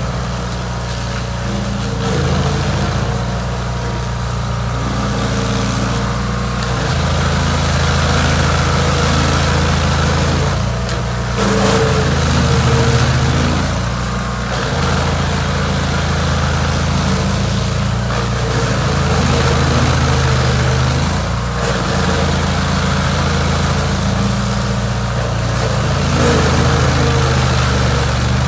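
Chainsaw engine running continuously, its pitch stepping up and down several times as the throttle and cutting load change while it saws through a log root.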